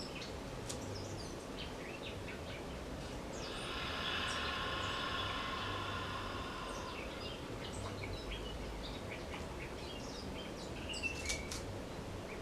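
A woman's voice sustaining one long, steady exhaled 'haaa', the Qigong heart healing sound, for about three and a half seconds, starting about three seconds in. Birds chirp throughout.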